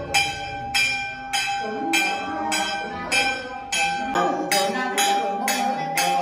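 A small metal ritual bell struck in a steady beat, a little under twice a second, each stroke ringing on. Under it a Nùng ritual master's voice chants.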